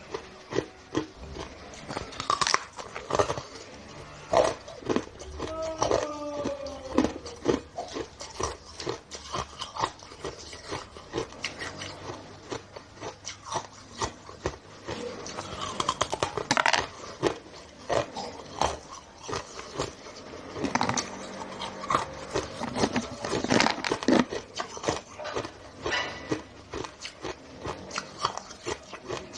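Hard frozen ice bars, frosted blue ice, being bitten and chewed close to the microphone: a continuous run of sharp, crisp crunches, some much louder than the rest.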